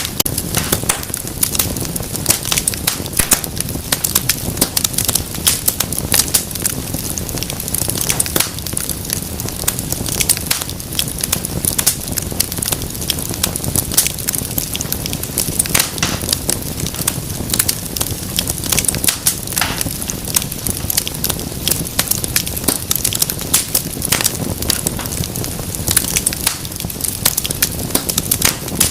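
Wood fire burning in a fireplace, with frequent sharp crackles and pops over a steady low hiss of flame.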